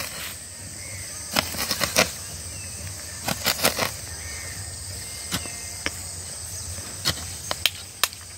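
Hoe blade striking and chopping into earth in irregular knocks, some in quick runs of two or three, as a pit is dug by hand. Faint bird chirps and a steady insect drone sit behind the strikes.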